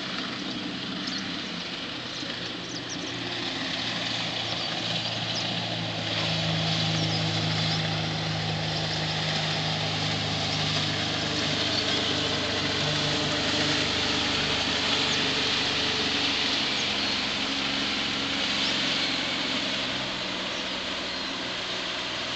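Engine of a fast motorboat passing along the river, a steady drone that swells about a quarter of the way in, holds, and eases off near the end.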